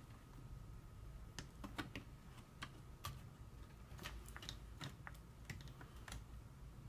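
Faint, irregular clicks and taps of small plastic laptop parts being handled, as the new display panel and its cable connector are fitted into the lid.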